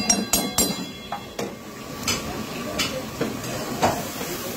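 A long metal spoon knocking and scraping against a steel karahi, with a quick run of clinks at first and then single knocks about once a second.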